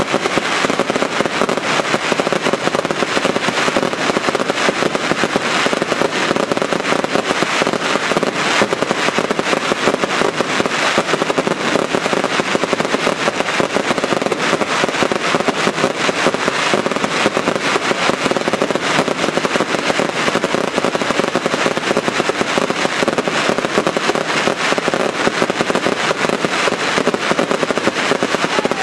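Daylight fireworks: a dense, unbroken barrage of crackling and firecracker bangs from shells bursting overhead in red sparks.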